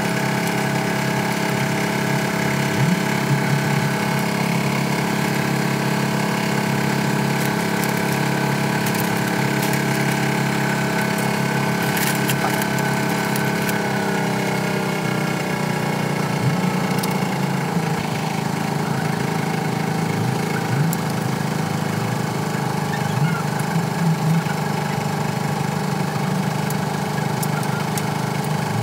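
Rebuilt Hino FM 8J truck diesel engine running at a steady idle. About halfway through, its speed falls over a few seconds, then it runs on steadily at the lower speed.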